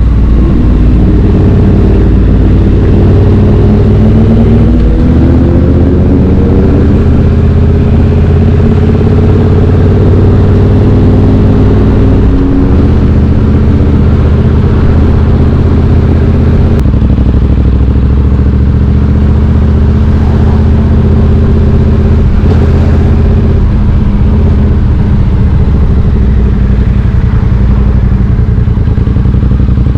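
Triumph Street Twin 900's parallel-twin engine running through British Customs slash-cut exhaust tips while riding, rising in pitch as it accelerates over the first several seconds, then holding with a few changes in engine note.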